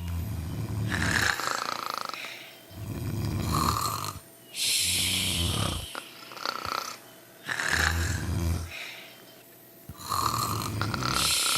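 Several sleepers snoring together: deep snores about every two and a half seconds, alternating with hissy, faintly whistling breaths.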